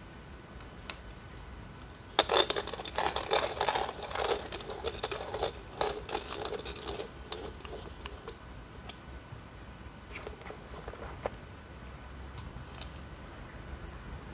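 A few coffee beans being cracked and ground between the titanium-coated hardened-steel burrs of a Millwright hand grinder as its crank is turned, set coarse at 45 clicks. A dense run of crunching clicks starts about two seconds in and lasts some five seconds, then thins to scattered clicks as the last bits pass through.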